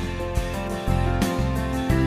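Background music: a plucked guitar-like melody over a steady bass, with notes changing every half second or so.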